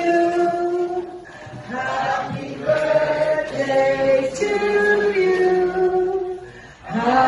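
A woman singing a Tagalog ballad into a microphone over a PA, in long held notes phrase by phrase, with two short breaks between lines.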